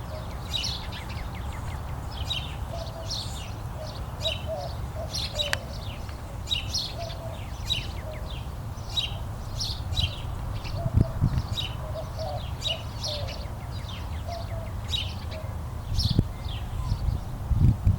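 Small birds chirping, short high chirps repeating about once or twice a second, over a steady low rumble with a few dull thumps near the middle and end.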